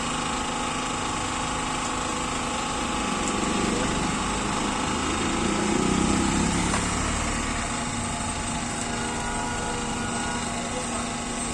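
Steady machine hum from a running motor, made of several constant tones, swelling a little about halfway through.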